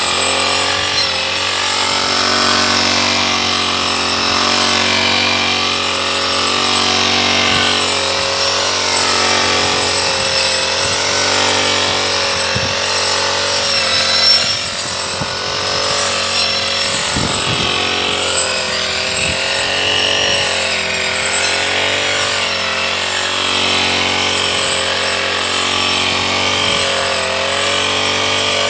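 Brush cutter engine running at cutting speed, its pitch wavering as the blade bites into tall grass, with a few brief knocks in the middle and near the end.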